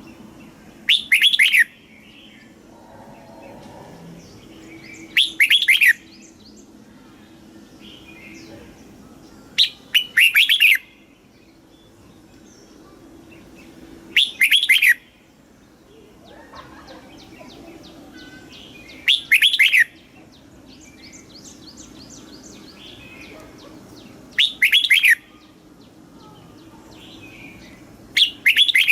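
Red-whiskered bulbul singing loud, short whistled phrases, seven in all, one about every four to five seconds, with faint twittering between them.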